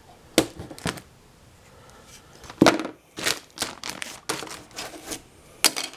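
Clear plastic bag crinkling in a string of sharp crackles as it is handled and pulled away from cured polyester resin, with a couple of crackles early on and a quicker run of them over the second half.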